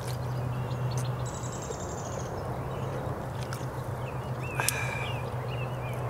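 A person drinking water in gulps from a plastic bottle, over outdoor ambience with small birds chirping and a steady low hum.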